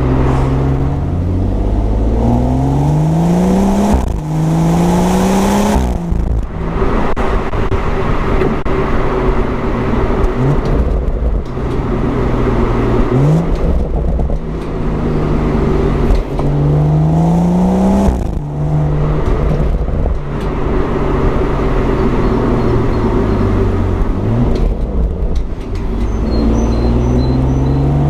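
BMW M140i's turbocharged 3.0-litre straight-six pulling hard several times, its exhaust note climbing with the revs and dropping sharply at each gear change.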